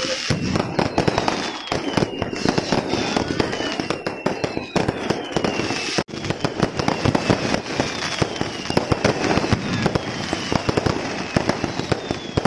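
Aerial fireworks going off in rapid succession: dense, continuous bangs and crackling, with a falling whistle every second or two. The sound drops out for an instant about halfway.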